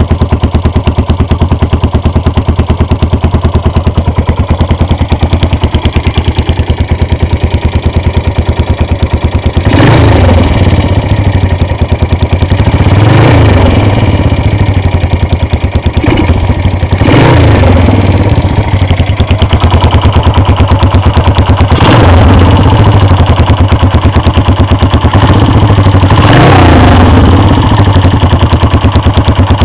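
1978 Yamaha SR500's air-cooled single-cylinder four-stroke engine idling through a Supertrapp exhaust, with the throttle blipped five times, each rev rising and dropping back to a loping idle.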